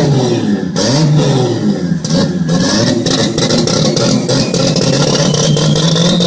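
Toyota Supra Mk4's straight-six engine revved in quick blips, then held against a 2-step launch limiter, popping and cracking rapidly from the exhaust while a thin whistle rises slowly in pitch.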